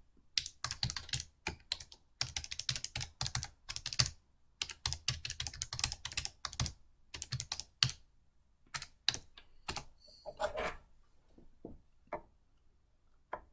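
Typing on a computer keyboard: quick runs of keystrokes for the first several seconds, thinning after about seven seconds to scattered key presses and clicks.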